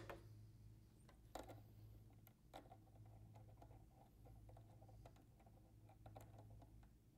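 Faint metal clicks and taps as an aftermarket hopping foot is fitted by hand onto a sewing machine's presser bar. The sharpest clicks come about one and a half and two and a half seconds in, over a low steady hum.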